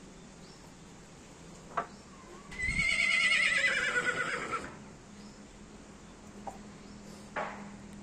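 Horse whinnying once, about two and a half seconds in: a loud, quavering call of about two seconds that falls in pitch toward its end. A short sharp knock comes before it and another near the end.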